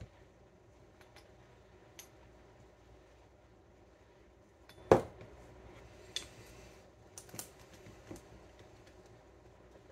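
Small clicks and clinks of a glass jar and an airbrush being handled, with one louder knock about five seconds in as the glass jar is set down on the cutting mat, followed by a few lighter ticks.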